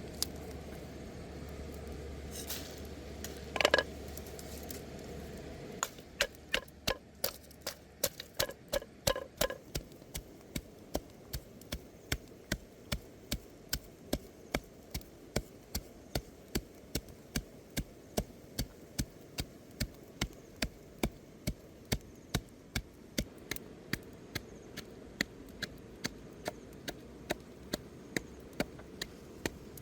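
A steady run of sharp knocks, about two a second, like a knife chopping on a wooden board, starting about six seconds in after a few scattered knocks.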